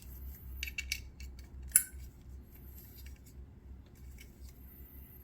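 Small hard accessories from an amplifier box being handled: scattered light clicks and taps, with one sharp click nearly two seconds in, over a faint steady low hum.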